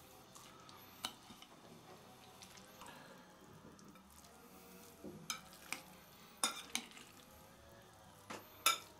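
Metal spoon stirring a mayonnaise-dressed salad of beef strips and pickles in a bowl: soft, wet mixing, with sharp clinks of the spoon against the bowl, most of them in the second half.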